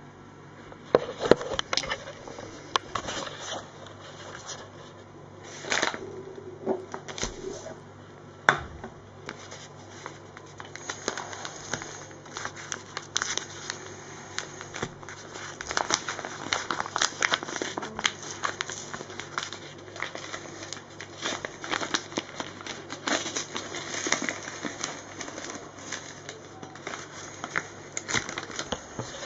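Flour bag rustling and crinkling as it is handled, over many small clicks and a few sharp knocks, the loudest about a second in and again near nine seconds.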